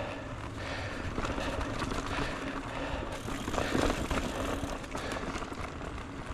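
A Votec 29er mountain bike being ridden along a rough trail: a steady rush of wind on the microphone over low rumbling tyre noise, with scattered rattling clicks from the bike over the ground.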